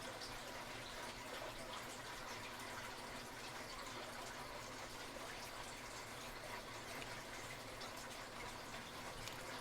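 Faint scattered small metal ticks of a tubular lock pick being worked and turned in a tubular lock, over a steady hiss.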